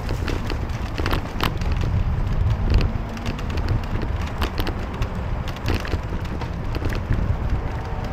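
Wind rumbling on the microphone during a ride along city streets, over traffic noise, with frequent short clicks and rattles.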